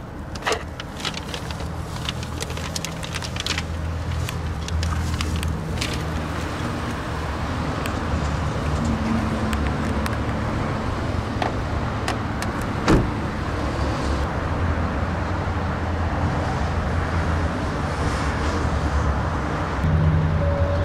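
Car engine idling with a steady low hum. It grows louder about four seconds in and again near the end. A few sharp clicks and knocks come in the first seconds, with one more knock near the middle.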